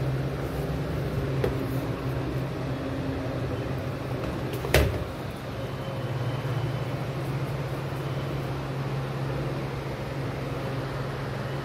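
Steady mechanical hum of a room appliance, with a single sharp knock about five seconds in and a fainter click earlier.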